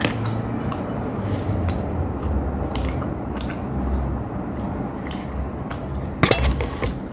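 Close-up chewing and biting of fried chicken eaten by hand, with many short wet mouth clicks. A louder sharp noise comes about six seconds in.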